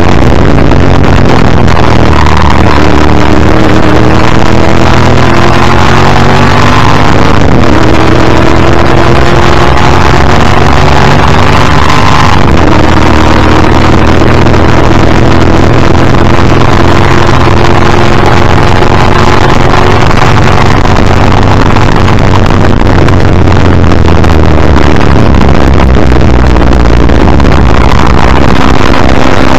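Ford Falcon XD Group C racing car's 351 V8 at full throttle, revving up through the gears with two quick gear changes. It then holds a long, slowly rising pull in top gear, drops in pitch as it brakes and shifts down for a corner, and climbs again. Heavy wind and road noise from the bumper-mounted microphone run under it.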